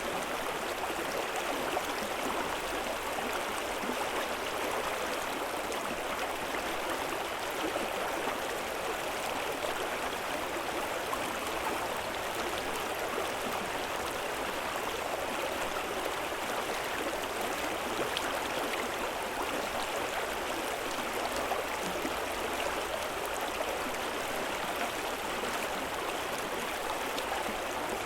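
River water flowing: a steady, even rush of moving water that does not change.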